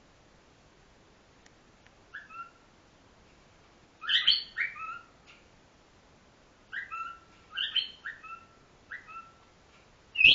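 Two pet cockatiels mimicking 'peek-a-boo' in short, high, falling-pitched phrases: a faint one about two seconds in, louder ones around four seconds, a run of several between seven and nine seconds, and another starting at the very end.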